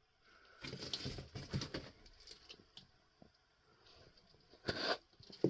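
Irregular crunching footsteps on loose rock and gravel in a rocky tunnel, with a louder scrape near the end.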